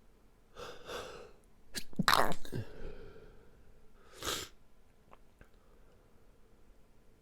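A stifled sneeze from a man in an allergy sneezing fit. There is a breathy wind-up about half a second in, then a loud, held-back sneeze about two seconds in, and another short sharp burst of breath about four seconds in.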